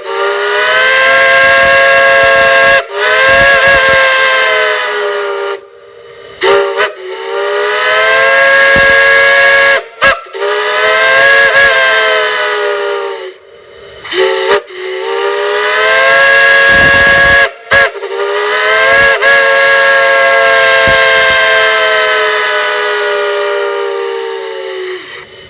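A multi-chime whistle sounding a chord in a run of long blasts, with two pairs of quick short toots between them. Each blast slides up in pitch as the valve opens and sags as it closes, with a hiss of escaping gas over the tone.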